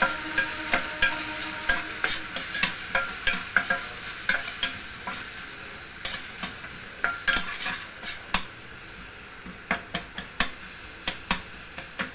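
Metal spatula scraping and clicking against a stainless steel pan, several irregular strokes a second, as it stirs chopped tomato and green chillies frying in hot oil, over a steady sizzle.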